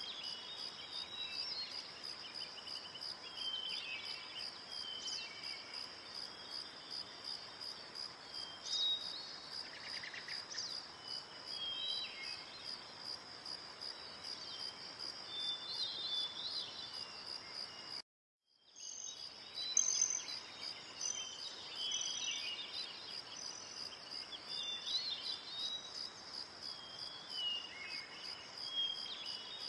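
Insects chirping in a steady, high, evenly pulsing trill, with scattered short bird chirps over it. The sound cuts out completely for about half a second just past halfway.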